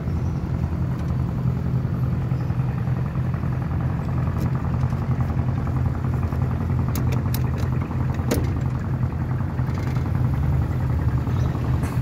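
A small boat's engine running steadily under way, a low even hum. A few light clicks or knocks come about seven to eight and a half seconds in.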